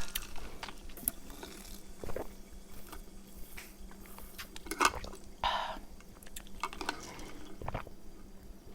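Someone drinking sparkling water: quiet liquid and swallowing sounds with scattered small clicks, and a brief hiss about five and a half seconds in.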